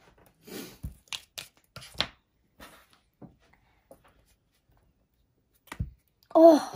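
Kinetic sand being scooped and packed into a plastic cupcake mould: a scatter of short scrapes, crunches and light plastic taps on the tabletop, busiest in the first two seconds, with a soft thud near the end.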